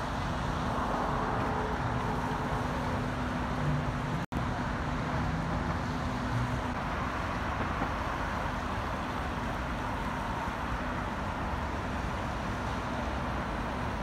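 Steady road traffic noise, an even rush of passing vehicles, broken by a split-second gap a little after four seconds.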